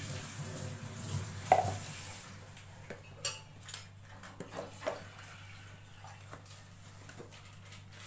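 Clinks and knocks of kitchen utensils, a steel mixer-grinder jar and a spoon handled against a mug and counter: one sharp knock about one and a half seconds in, then a run of lighter clinks.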